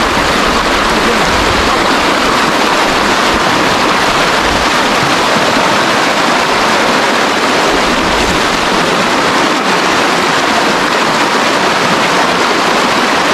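Shallow river running steadily over rocks and small rapids.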